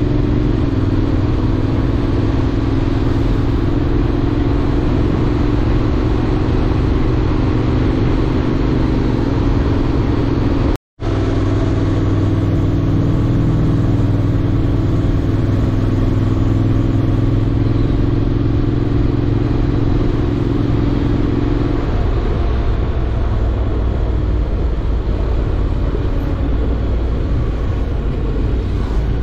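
Honda X-ADV's parallel-twin engine running steadily under way, with a broad rush of wind and road noise. The sound cuts out for a split second a little over a third of the way through, and the engine's note changes, dropping away, about three-quarters of the way through.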